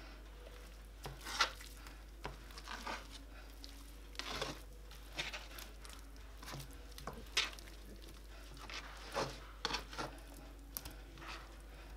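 Bare hands rubbing grated garlic and marinade into raw chicken wings: soft, irregular wet squelches and slaps of meat, coming every second or so.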